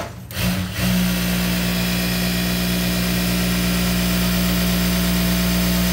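Jack A2B industrial sewing machine running steadily at speed to wind a bobbin, a steady motor hum with a whir. It starts just under a second in.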